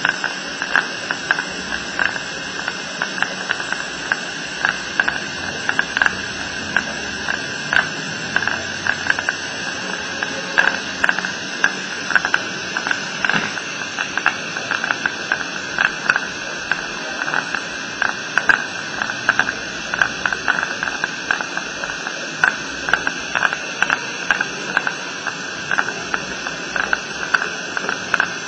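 Dental suction running: a steady, faintly whistling hiss with many small irregular clicks and crackles.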